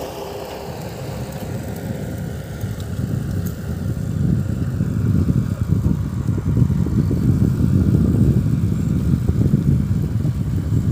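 Low, uneven rumble of wind and vehicle noise on a microphone moving along a road at riding speed, louder from about four seconds in.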